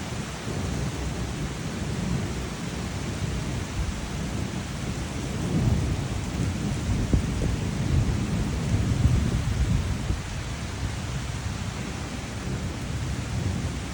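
Thunderstorm setting in: a continuous low rumble over rain noise, swelling louder in the middle.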